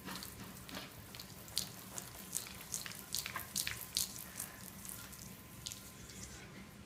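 A cat being spun around on a hardwood floor: quick, irregular swishes and squeaks of its fur and body sliding over the wood, which die away near the end.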